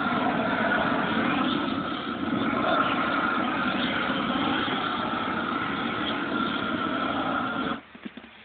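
A steady, loud rushing noise from the handheld tool the worker is using on the roof, cutting off suddenly near the end.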